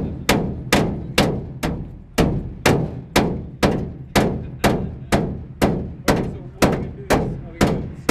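Hammer blows striking steadily, about two a second, each a sharp knock with a short ring, as a board is fixed to the inside of a van's bare metal side wall.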